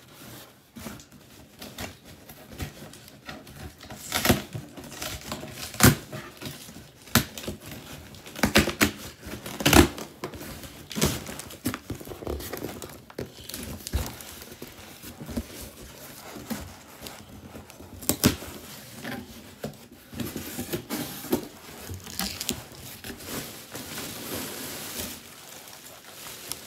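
Cardboard shipping box being opened by hand: packing tape tearing off and stiff cardboard flaps being pulled back and handled, with irregular sharp knocks and crinkling.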